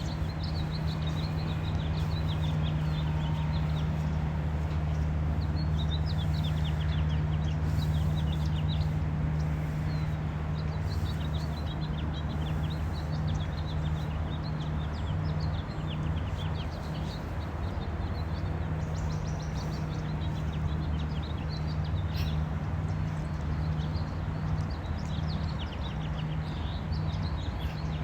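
Small birds chirping and twittering in quick short notes, again and again, over a steady low hum.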